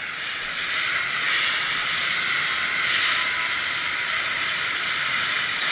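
A steady, even hiss with no breaks, the kind made by rushing or spraying water or air around a cooling tower.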